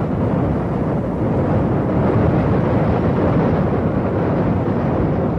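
Qiantang River tidal bore: a wall of breaking water advancing up the estuary, heard as a loud, steady rush of water with a deep rumble beneath.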